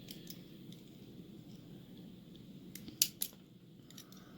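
Small metal lock parts being handled as pins and springs are taken out of a pin-tumbler lock: a few faint clicks, then two sharp clicks close together about three seconds in.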